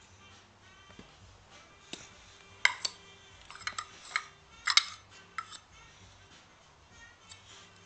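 A cluster of sharp clicks and clacks of hard objects knocking together, bunched between about two and a half and five and a half seconds in. Faint music plays behind them.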